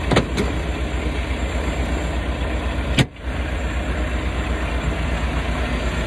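Diesel engine of a semi-truck idling, a steady low pulsing rumble under a broad hiss. A sharp click about three seconds in.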